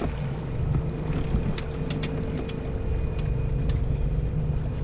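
A small boat's motor running steadily at low speed, a low hum with a faint higher whine, with a few light clicks scattered through it.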